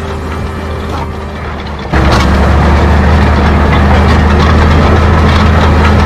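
John Deere 6830 tractor's six-cylinder diesel engine running steadily under load while pulling a reversible plough through the soil. It gets abruptly louder about two seconds in.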